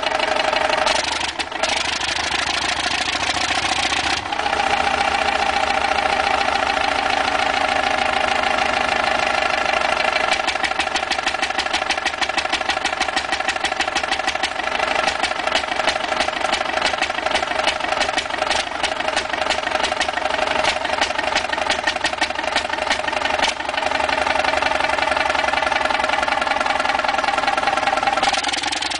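Huge antique multi-cylinder stationary engine with a large flywheel running steadily, with a rapid, even firing beat.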